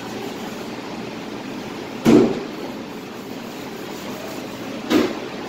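Steady hum of a commercial kitchen's ventilation, broken by two short thumps: one about two seconds in, the louder, and another near the end.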